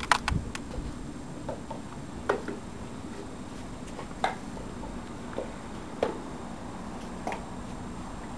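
A dog's claws tapping on a ceramic tile floor: a handful of sharp clicks, unevenly spaced, over a steady low hum.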